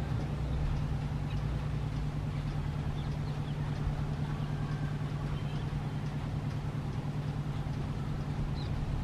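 Steady low mechanical hum, even in level and pitch throughout.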